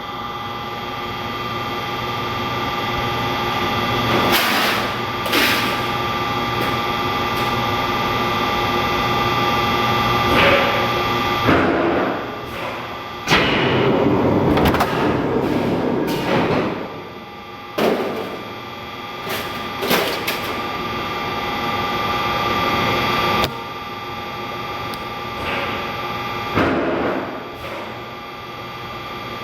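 Press machine running with a steady hum of fixed tones, broken by irregular knocks and louder stretches of noise, the longest about halfway through.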